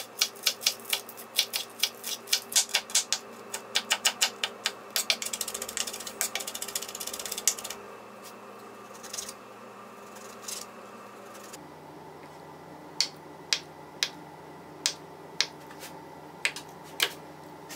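Kitchen knife chopping on a wooden cutting board. Fast, even knocks come at about three to four a second over the first seven seconds or so as green onion is sliced. After a quieter stretch, slower single knocks follow as the blade cuts through a block of tofu.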